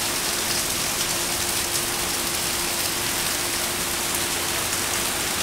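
Heavy tropical downpour: a steady, even hiss of rain pouring down onto foliage and the ground.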